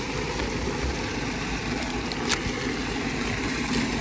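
Steady hiss of a water jet spraying as a tractor's bodywork is washed down, with one sharp click about two seconds in.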